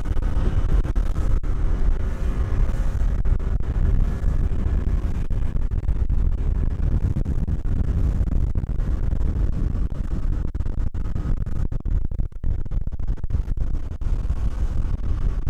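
Small fishing boat's engine running steadily while under way, mixed with heavy wind rumble on the microphone.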